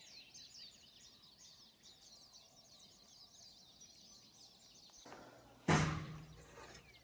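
Many small birds chirping and twittering together, a dense run of short, high calls. About five and a half seconds in, a brief loud sound cuts in over them.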